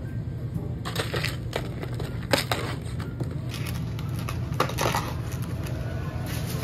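Paper food wrapper and a cardboard takeaway box being handled and folded by hand: irregular crinkling and rustling, the busiest stretch in the middle, over a steady low hum.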